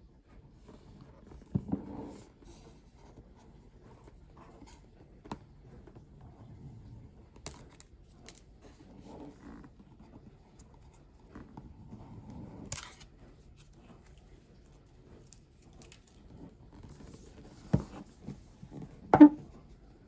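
Cardboard gift box being handled, its adhesive seal strips peeled off, with soft rustling and a few sharp clicks. It knocks on a wooden tabletop once about two seconds in and twice near the end, the last knock the loudest.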